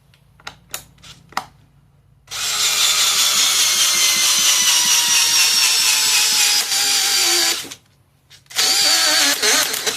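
Hypertough cordless brushless hammer drill driving a lag bolt: a few light clicks, then a long run of about five seconds with the motor's pitch falling steadily as it slows under load, a stop, and a second short burst on the trigger near the end.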